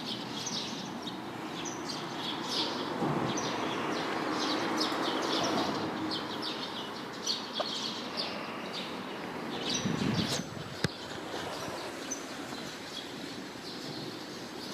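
Small birds chirping repeatedly in short high calls over a steady background hiss, with a brief low rustle about ten seconds in and a sharp click just after it.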